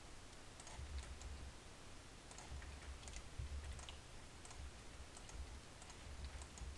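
Faint, scattered computer mouse and keyboard clicks, a few irregular clicks every second, over a low hum.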